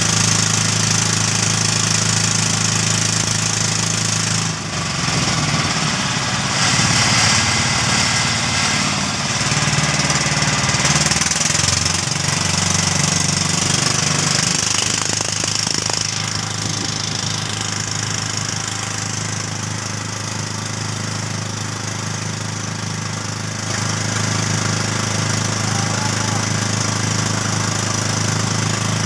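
Small boat's motor running steadily with a low, even drone. For several seconds in the first half its note wavers, then settles again.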